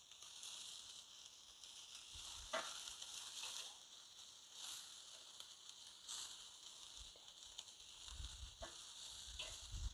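Chicken wings sizzling faintly on a grill: a steady fat hiss with a few small crackling pops, and a low rumble near the end.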